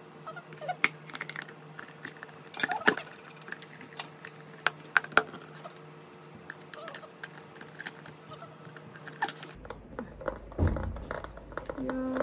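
Scattered light clicks and taps of utensils and containers being handled while mixing ingredients, over a steady low appliance hum that cuts off about three quarters of the way through.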